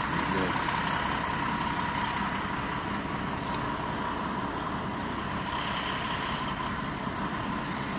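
Truck running down the road, heard from inside the cab: a steady mix of engine and road noise with a faint constant whine.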